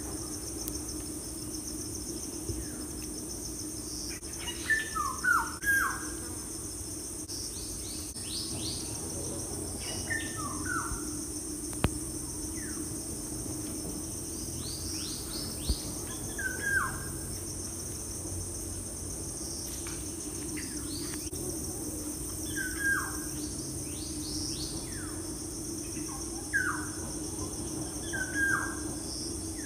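Songbirds singing short phrases of quick, steeply falling whistled notes, one phrase every five or six seconds, over a steady high-pitched drone.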